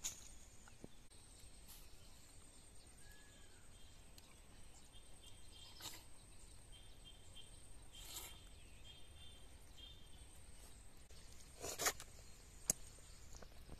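Quiet outdoor ambience with faint bird chirps, broken by a few short, soft sounds of ripe papaya being bitten and eaten by hand. The loudest of these come near the end.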